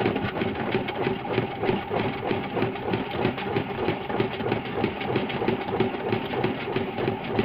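Washing machine running a spin cycle: a steady motor hum with a fast, even rattling knock.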